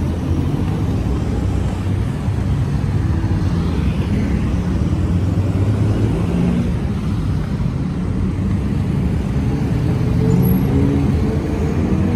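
Road traffic: motor vehicle engines running with a steady low rumble, and an engine note growing stronger near the end.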